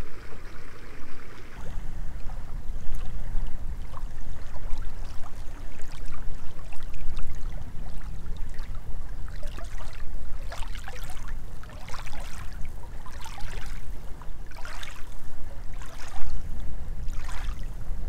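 Small lake waves lapping onto a pebble shore, water washing and trickling among the stones over a steady low rumble. From about ten seconds in come repeated short splashes as the waves break on the gravel.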